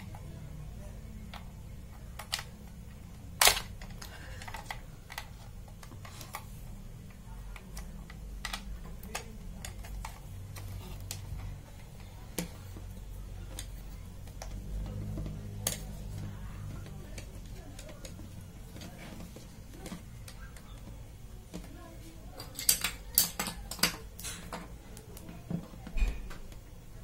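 Scattered clicks and light taps of a plastic pan-tilt security camera and its antennas being handled on a desk. There is a sharper knock about three and a half seconds in and a quick run of clicks near the end, over a low steady hum.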